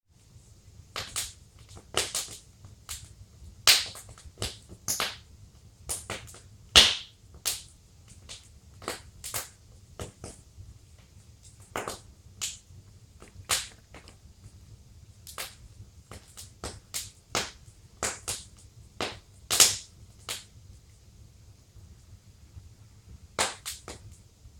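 Wood fire in a fireplace crackling: irregular sharp pops, one or two a second, with a few louder snaps among them, over a faint low rumble.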